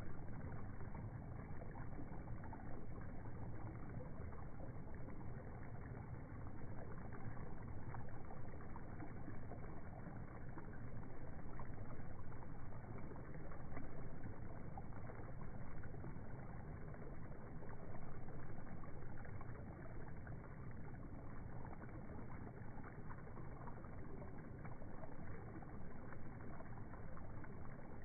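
Steady, muffled rushing noise, strongest in the low end, with no distinct events.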